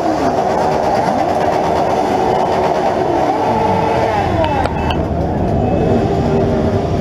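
Many motorcycle engines running together, several revving at once so that their pitches rise and fall over one another.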